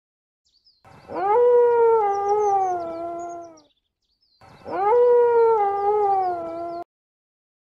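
A canine howling twice: two long calls of about two and a half seconds each, each swooping up sharply at the start and then sliding slowly down in pitch, the second cut off suddenly. Faint high bird chirps sound behind the howls.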